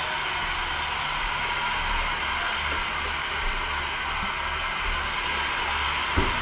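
Steady rushing hiss of a fire hose stream, over a low throb that pulses about twice a second. A short knock sounds just before the end.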